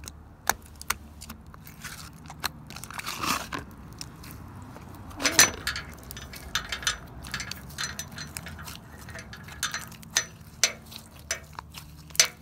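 Sticky clear-glue glitter slime being squeezed and pulled by hand, giving irregular wet clicks and pops, with a louder squelch about five seconds in. The slime is freshly activated and still sticky, clinging to the hands.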